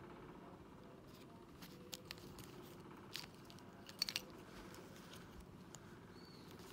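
Small plastic toy pieces clicking and tapping as fingers handle and fit them together: a few light clicks, with a quick cluster of the loudest ones about four seconds in, over faint room hiss.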